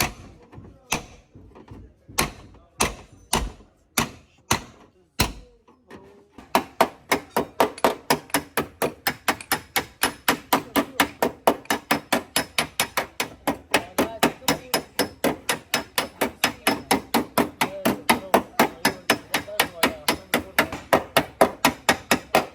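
Hammer blows on car body sheet metal during dent repair (panel beating). A handful of spaced, uneven blows come first; from about six seconds in they turn into a fast, steady run of about four a second.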